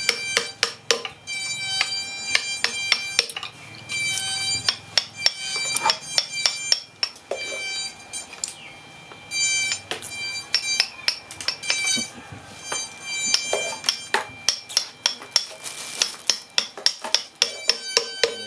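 Steel carving chisel being struck repeatedly as it is driven into wood: runs of sharp metallic taps, roughly three or four a second, each ringing briefly, with short pauses between the runs.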